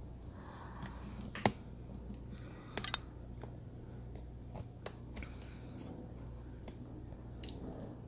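Scattered clicks and knocks of a camera being handled and repositioned: a single sharp click, a quick rattle of several near the middle, then a few more spaced clicks, over a low steady hum.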